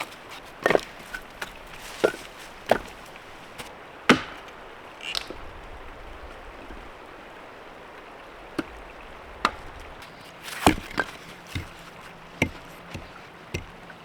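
Firewood being split by hand: a series of sharp, irregularly spaced chopping strikes of a blade into wood, a few seconds apart at first and coming closer together near the end.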